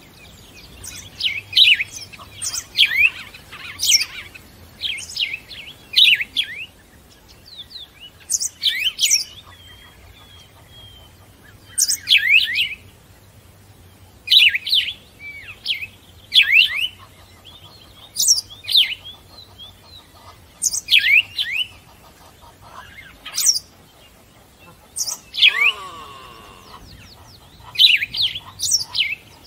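Birds chirping: short, sharp calls that sweep downward in pitch, coming in quick clusters of two or three every second or two.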